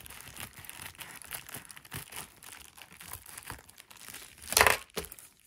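Scissors cutting along the edge of a plastic bubble mailer, the plastic crinkling and crackling continuously, with a short louder burst of crinkling about four and a half seconds in.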